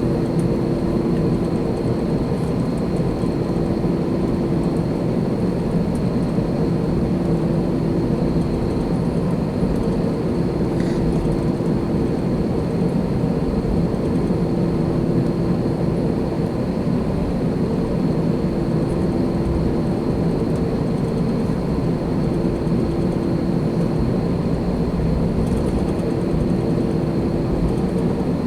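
Airbus A321's twin CFM56 turbofan engines running steadily at high thrust, heard from inside the passenger cabin as an even roar with faint steady whining tones.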